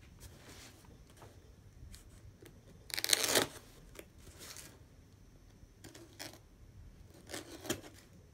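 Small folding knife cutting through duct tape and cardboard on a taped-up box: a few short bursts of slicing and tape tearing, the loudest about three seconds in.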